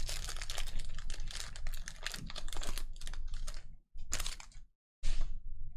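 Trading cards being thumbed through one after another, a quick run of crisp clicks and slides of card stock, then two short rustles near the end.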